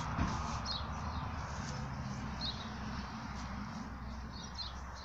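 Small birds chirping: short high chirps, each falling in pitch, about every second, over a steady low rumble.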